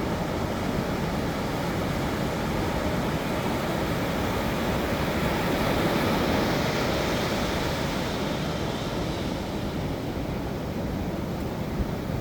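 Ocean surf breaking on a sandy beach, a continuous wash of waves that swells about halfway through and then eases back.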